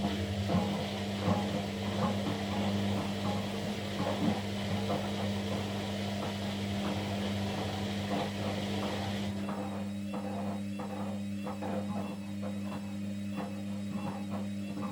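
Kunft washing machine running: a steady motor hum with irregular small knocks and clicks from the turning drum, and a hiss that cuts off suddenly about nine seconds in.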